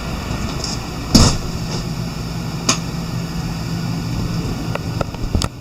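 Steady hum of a camper's air conditioner running, broken by a few sharp knocks and clicks, the loudest about a second in.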